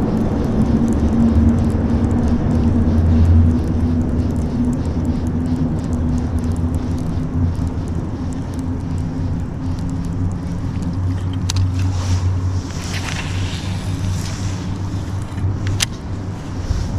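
Boat motor running steadily, with two sharp clicks in the second half.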